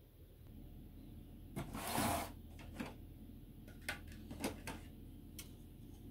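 Plastic scale-model parts being handled on a cutting mat: a short scraping rustle about two seconds in, then a few light clicks and taps.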